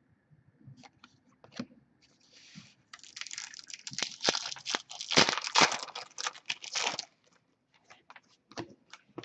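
A foil hockey card pack (Upper Deck SPX) being torn open with loud crinkling and tearing for about four seconds, followed by light clicks of the cards being flicked through by hand.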